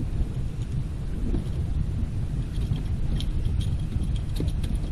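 Wind buffeting the action camera's microphone on an open boat, a steady, uneven low rumble, with a few faint light knocks in the middle.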